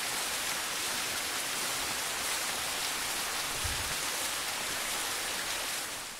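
Steady, bright hiss of rushing water, like a cascade pouring over rock, that drops away about six seconds in.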